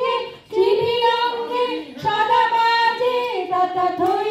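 A high voice singing a song in long held notes, with a short break near the start and the pitch stepping down about three and a half seconds in.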